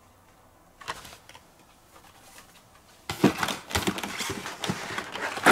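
Carded Hot Wheels die-cast cars being handled: light clicks and rustling of cardboard backing cards and plastic blisters. It gets busier from about three seconds in and ends with a louder crinkle.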